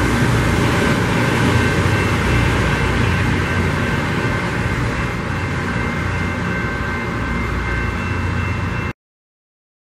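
Loram rail grinder train moving away down the track: a steady, heavy noise with a few thin high whines over it, slowly fading, then cutting off suddenly near the end.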